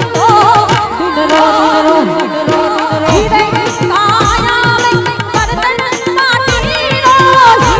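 Live Gujarati folk music for dandiya raas: an ornamented melody line with singing over a fast, steady drum beat, its low strokes dropping in pitch.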